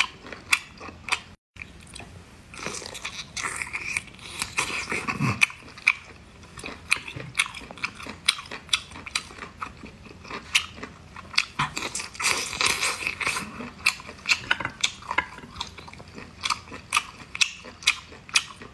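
Close-up chewing of cooked octopus tentacle: a steady run of wet, irregular mouth clicks and smacks from biting and chewing. The sound drops out completely for a moment about one and a half seconds in.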